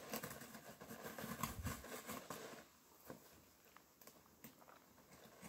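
Faint scratches and small ticks of the packing tape on a cardboard box being cut open, busiest in the first couple of seconds.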